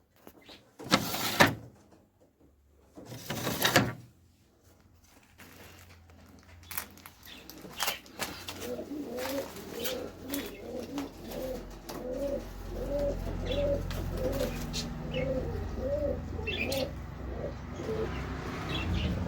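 Domestic pigeons cooing, a run of repeated low coos at about two a second over a steady low hum. Two loud, short rustling bursts come in the first few seconds, before the cooing starts.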